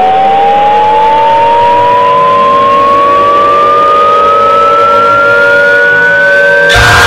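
Air raid siren winding up, its single tone rising slowly and steadily in pitch over a steady lower drone. Near the end a loud harsh noise suddenly joins it.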